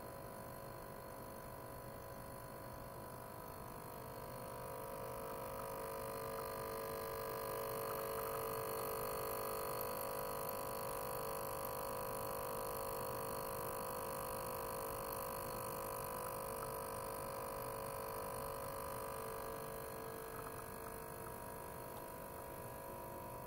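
A 42 kHz ultrasonic cleaner running: a steady hum made of several tones, which grows louder about four seconds in and eases a little near the end.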